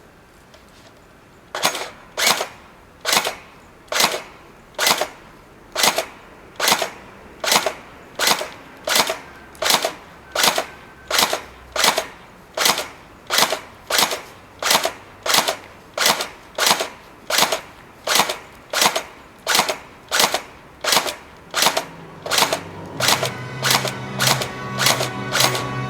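Tokyo Marui AA-12 electric airsoft shotgun firing a long string of shots at a steady pace, about three every two seconds, each a sharp crack with a short tail. Music comes in near the end.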